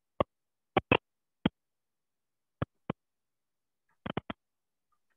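Chalk tapping and scraping on a blackboard as a word is written, in short, sharp separate strokes: a few single taps in the first second and a half, two more near three seconds, then a quick cluster of four about four seconds in, with dead silence between.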